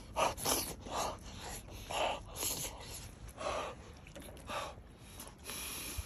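A person eating piping-hot cheese gratin with chopsticks, slurping and huffing out short, sharp breaths through the mouth to cool the hot food, in a string of about ten noisy puffs with a longer breath out near the end.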